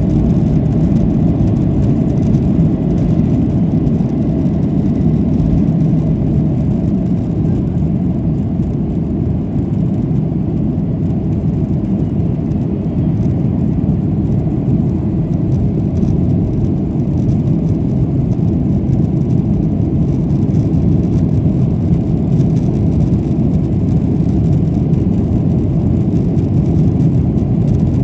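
Steady low rumble of a Boeing 737-700's CFM56-7B jet engines, holding an even level with no marked rise or fall.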